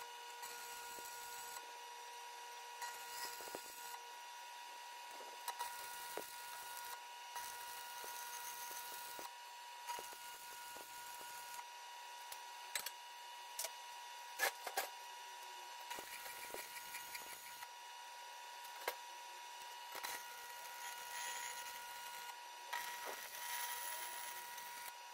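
Faint hiss and crackle of stick welding steel square tubing with 6013 electrodes, with scattered sharp clicks and a steady thin high tone underneath.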